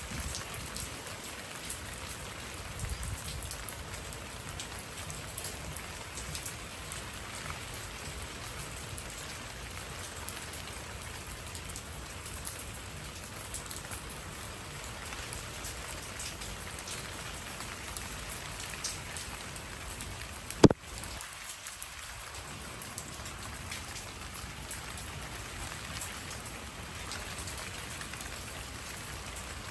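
Steady rain falling, with many separate drops heard, and one sharp click about two-thirds of the way through.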